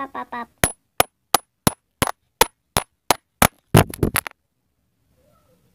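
A series of sharp clicks, evenly spaced at about three a second, ending in a quick flurry of clicks about four seconds in.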